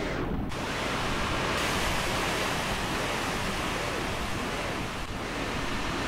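Heavy surf breaking and washing over rocks: a steady rushing noise that sets in about half a second in, with a few faint gliding tones over it in the middle.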